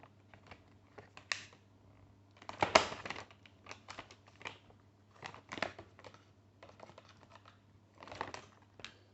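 Scattered light clicks and taps with short rustles of sandwich-making, as cheese and fillings are handled on a kitchen counter, with a few louder bursts about three, five and a half and eight seconds in.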